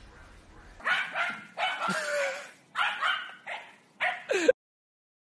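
A dog barking: about five loud, drawn-out barks over some three and a half seconds, then the sound cuts off abruptly.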